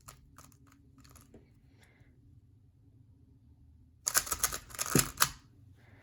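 3x3 Rubik's cube being turned by hand: plastic clicks of face turns, a few separate turns in the first second or so, then a quick flurry of turns about four seconds in, the loudest part. The turns are an adjacent corner swap algorithm being performed.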